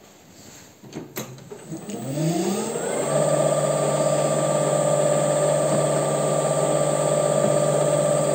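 WM210V bench lathe started up: a couple of clicks, then the motor and gear train spin up with a rising whine over about a second and settle into a steady run, turning a rod in the four-jaw chuck for a runout check with a dial indicator.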